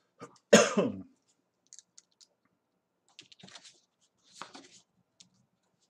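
A brief loud voice sound about half a second in, then a few light clicks and short rustles as printed reference photos are handled and slid across the drawing paper.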